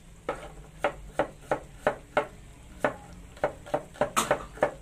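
Sliced shallots frying gently in butter in a pot, under about a dozen sharp, irregular knocks of a kitchen utensil, two or three a second.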